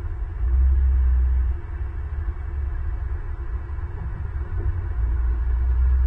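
Low rumble of wind buffeting the nest camera's outdoor microphone, swelling louder twice in gusts, over a faint steady hum.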